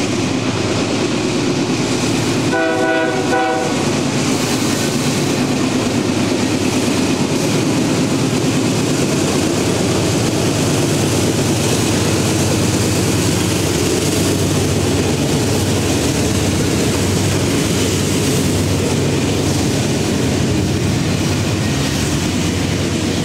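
Norfolk Southern diesel locomotives climbing upgrade at full throttle, engines wide open as they pass close by, with a horn blast of about a second near the start. Loaded ethanol tank cars then roll past, wheels clicking over the rails.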